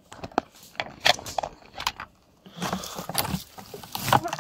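Dry leaf litter and undergrowth rustling and crackling underfoot and under hand, with a string of sharp snaps and clicks and a rougher stretch of rustling in the second half.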